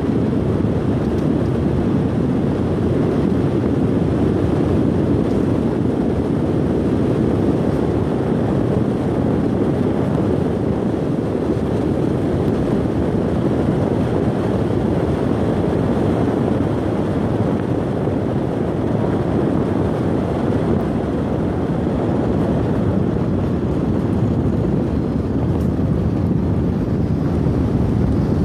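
Steady road noise of a car driving on a dirt and gravel road, heard from inside the cabin: tyre rumble and engine running as one even, low rumble.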